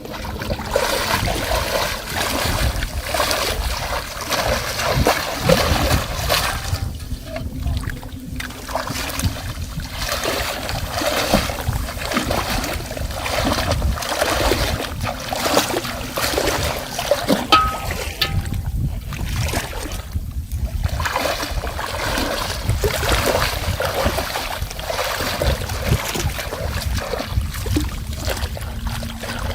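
Water splashing and trickling, irregular and continuous, with a low rumble underneath.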